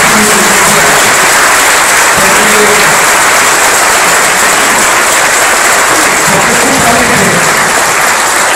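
Crowd applauding: a roomful of people clapping steadily, without a break.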